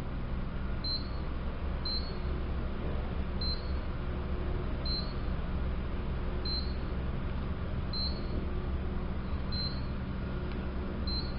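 KONE traction elevator car travelling upward: a steady low hum from the ride, with a short high beep about every one and a half seconds, one for each floor passed.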